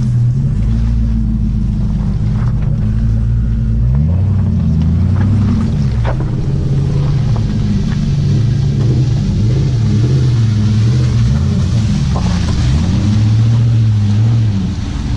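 A 4x4's engine working through mud, revving up and down over and over, its low exhaust note rising and falling in pitch.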